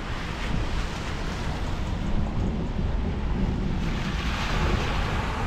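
Wind buffeting the microphone: a steady low rumble, with a broader hiss that swells up about four seconds in.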